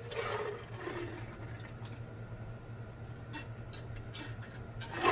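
Soft swallowing and mouth sounds while drinking from a large glass jar, with a few faint clicks about three to four seconds in, over a low steady hum.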